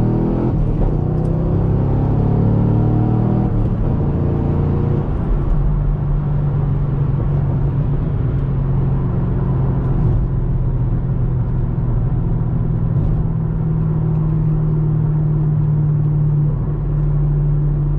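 Chevrolet Camaro SS 6.2-litre V8 under hard acceleration, its pitch climbing for about the first four seconds, then settling into a steady low drone at cruising speed.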